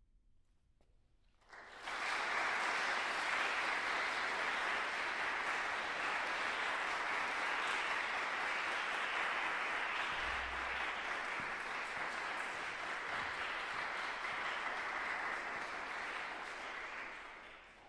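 Audience applauding. The applause breaks out suddenly about a second and a half in after a brief hush, holds steady, then dies away near the end.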